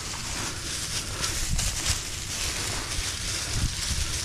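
Tall grass rustling and brushing as a small alligator is dragged through it on a catch pole, with low wind rumble on the microphone.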